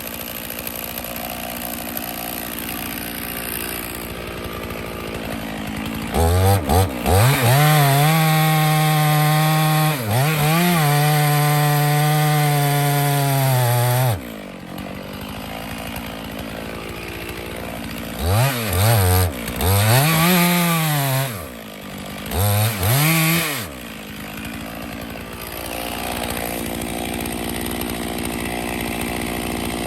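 Stihl chainsaw idling, then opened up to full throttle about six seconds in and held high for several seconds with a brief dip, before dropping back to idle. Two shorter bursts of throttle follow later, each rising and falling in pitch, and then the saw goes back to idling.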